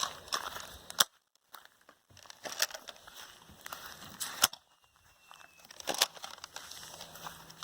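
Nerf foam-dart pistols firing: three sharp snaps, about a second in, near the middle and a second and a half later, among scattered rustling and footsteps.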